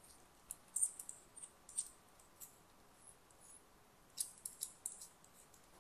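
Small plastic parts of a phone holder mount clicking and rattling in the hands as they are handled and fitted together, in two short clusters of sharp clicks.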